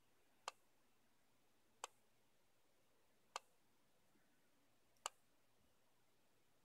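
Samsung Gear 2 smartwatch's speaker playing the on-screen keyboard's key-press click as keys are tapped: four short, sharp clicks spaced about a second and a half apart.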